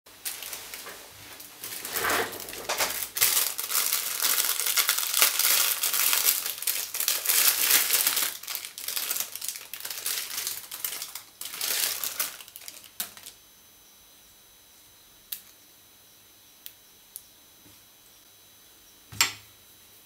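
Clear plastic packaging crinkling and rustling as it is handled, for about thirteen seconds. Then it goes much quieter, with a few small clicks and a single light knock near the end.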